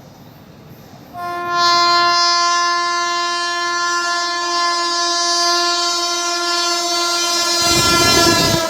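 Indian Railways locomotive horn sounding one long, steady blast of about six seconds as an express approaches at speed without stopping. Near the end the horn stops and the loud rush of the passing train takes over.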